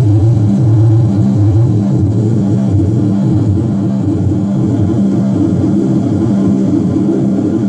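Metsään Echoblender delay pedal processing a low instrument line: dense, distorted, droning low notes layered with repeating echoes, the pitches shifting every fraction of a second.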